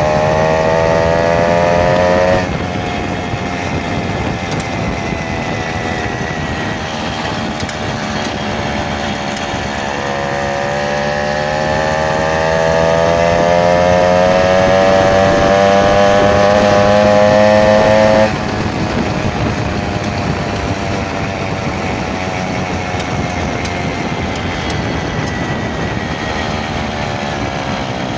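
Minarelli V1 two-stroke moped engine running, with a whining tone that climbs slowly in pitch and cuts off abruptly, once about two seconds in and again after an eight-second rise near the middle: the odd noise the owner is showing.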